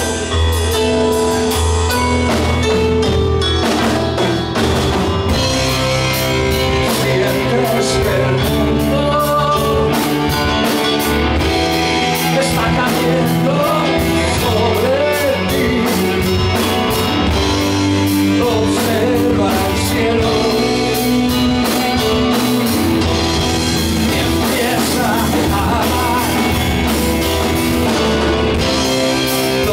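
Progressive rock band playing live and loud: a male voice singing over a Yamaha Motif keyboard, electric bass, electric guitar and drum kit.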